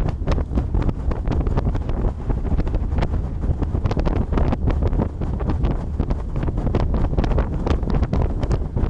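Wind buffeting the microphone on a moving boat: a steady, loud low rumble broken by many short crackles and gusts.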